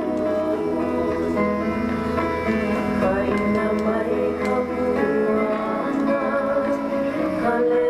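Hawaiian hula song played over an outdoor PA loudspeaker: plucked strings carrying a steady melody, with a singing voice.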